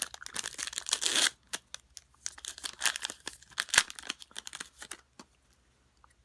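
Plastic wrapper of a Panini Prizm trading-card pack being torn open and crinkled: irregular crackling for about five seconds, then it dies down.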